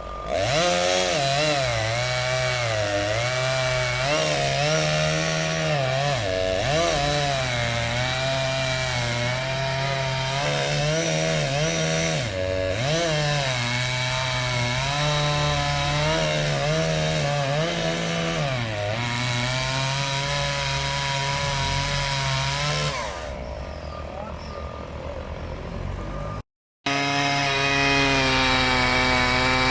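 Two-stroke chainsaw running and cutting trees, its engine note wavering up and down as the chain bites and frees. Near the end it cuts out for an instant, then runs on at a steadier, higher pitch.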